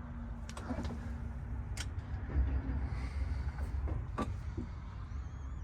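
A few sharp clicks and knocks, like things being handled in a stripped truck cab, over a steady low rumble.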